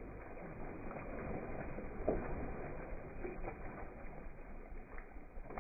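Two puppies wrestling in shallow water in a plastic kiddie pool: continuous sloshing and splashing, with a sharper splash about two seconds in.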